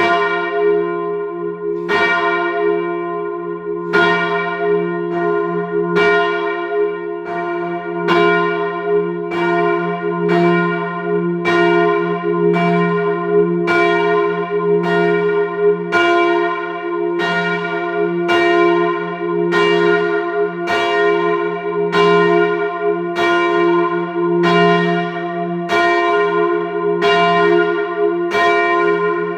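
One heavy church tower bell being rung up, its clapper striking about once a second, with the bell's deep hum carrying on between strikes.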